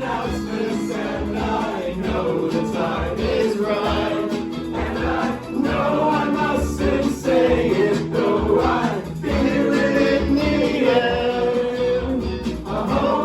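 An 80s-style rock song playing, with sung vocals over a steady beat.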